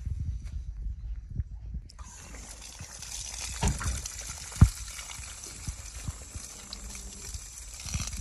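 Water running from an outdoor spigot and splashing over a rusty key held in rubber-gloved hands, rinsing off rust-remover gel; the running water starts suddenly about two seconds in. Before it there is low rumbling handling noise, and a couple of sharp knocks come in the middle, the loudest about four and a half seconds in.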